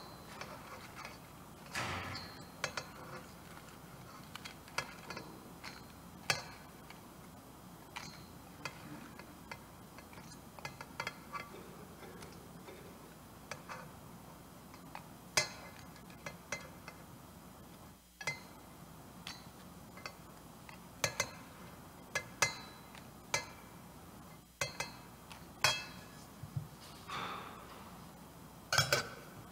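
Irregular light clinks and taps of sacred vessels being handled on the altar, some with a brief ring, roughly one a second: the chalice and ciborium being purified after Communion.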